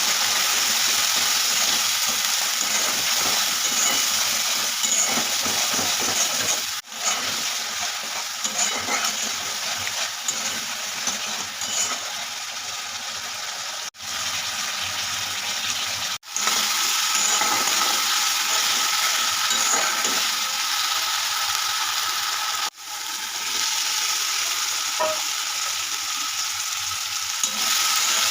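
Food sizzling as it fries in hot oil in a pan, a steady dense hiss. It drops out briefly four times, at about 7, 14, 16 and 23 seconds in.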